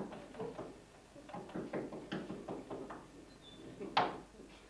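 Faint, indistinct low voice and small handling noises, with a single sharp knock about four seconds in, the loudest sound.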